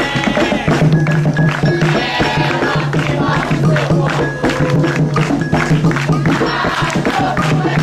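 Group singing of an Umbanda ponto (ritual chant) over fast, steady percussion with drums and shaken rattles.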